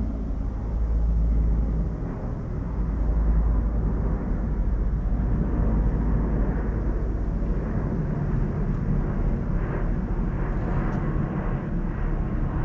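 An engine running steadily, a continuous low rumble with a hum that wavers slightly in level.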